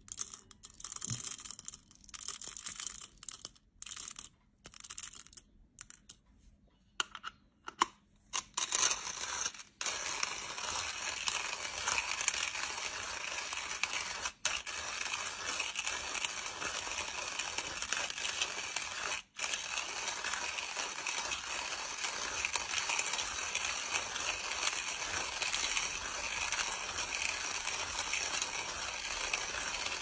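Hand-cranked stainless steel coffee grinder grinding coffee beans, in short stop-start bursts for about the first ten seconds, then continuous as the crank turns steadily.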